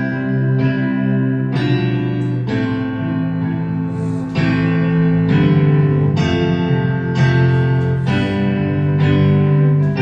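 Guitar-led music with sustained, ringing chords, a new chord struck about once a second.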